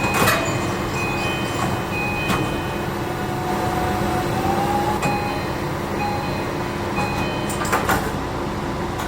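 JR Kyushu 821 series train's door chime sounding over and over in short tone phrases, over a steady hum from the train. Sharp knocks from the sliding doors come at the start and twice close together around eight seconds in.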